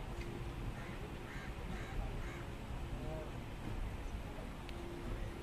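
Steady low rolling noise of a passenger train moving slowly through a station, with a bird calling a few times between about one and two and a half seconds in.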